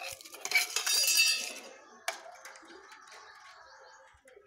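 Stainless-steel dishes being washed in a metal tub of water: a burst of clattering and sloshing about half a second in, then a sharp clink about two seconds in that rings on and fades.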